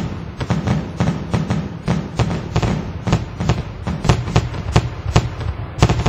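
Fireworks going off: a rapid, irregular series of sharp bangs and deep booms.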